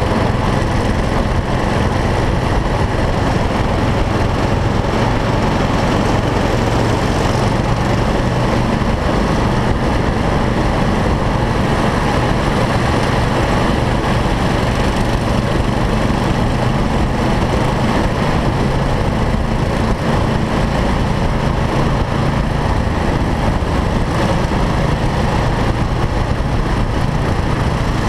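Single-cylinder four-stroke racing kart engine running at speed, heard from on board the kart: a continuous loud drone whose pitch rises and falls a little with the throttle through the corners.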